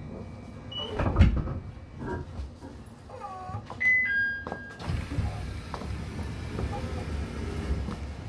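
Inside a JR East E721 series electric train slowing to a stop at a station: low running rumble with knocks and clunks, the loudest about a second in, and a short falling two-note electronic chime about four seconds in.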